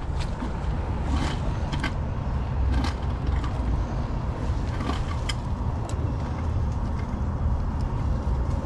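A steady low rumble with several short, sharp clicks and light metal taps from threaded gas-pipe fittings being handled and fitted at a gas meter.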